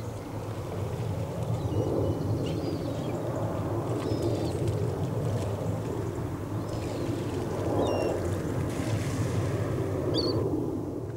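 Low, steady rumble of ship engines carried across the water from an LPG tanker and its two tugs, with several short, high bird calls over it.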